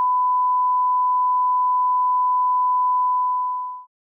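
A single steady electronic beep tone, one pure unchanging pitch held for several seconds, fading out near the end.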